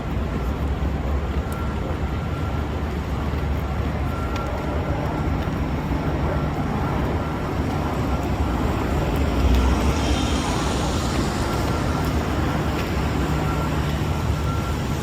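City street traffic: a steady low rumble of vehicles, with one passing louder about ten seconds in, and a faint steady whine above it.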